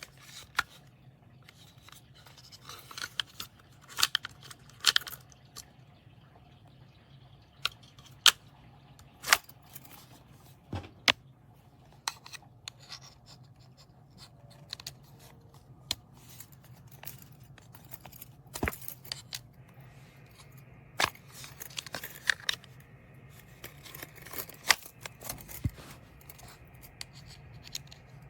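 Small hard plastic objects handled at close range, most likely the earbuds and their charging case: scattered sharp clicks and taps with brief rustling, over a faint steady low hum.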